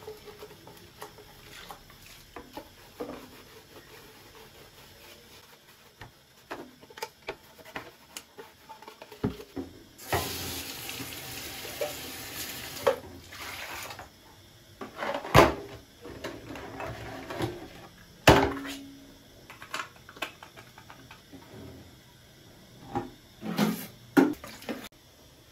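Washing up at a stainless-steel kitchen sink: a blender jar is rinsed under the running tap, whose water runs for about four seconds near the middle. Scattered clinks and a few sharp knocks come from the jar and dishes being handled against the sink.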